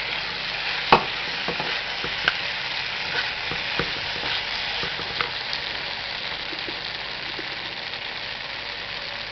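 Fried cauliflower and sauce sizzling in a pan on the stove as they are stirred together, with a utensil knocking against the pan several times; the sharpest knock comes about a second in, and the knocks thin out after about five seconds while the steady sizzle goes on.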